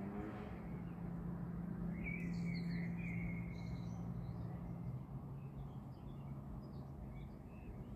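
Small birds chirping and warbling, starting about two seconds in, over a steady low hum that fades after about five seconds.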